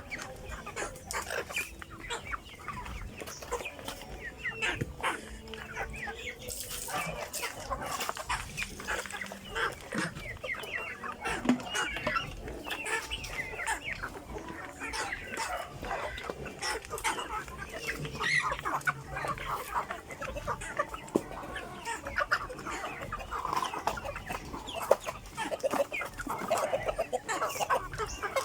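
A flock of chickens clucking and calling continuously, many short overlapping calls, with the odd click or knock among them.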